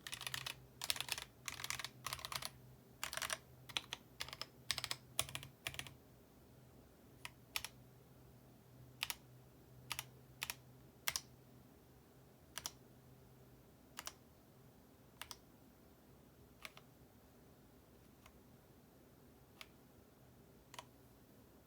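Akko ACR98 Mini mechanical keyboard with stock Akko CS Jelly White linear switches on an acrylic plate in a stacked acrylic case, with ASA keycaps: quick bursts of typing for the first six seconds, then single keystrokes about a second apart, getting fainter toward the end.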